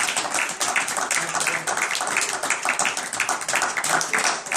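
A small group of people applauding, many quick, irregular hand claps overlapping.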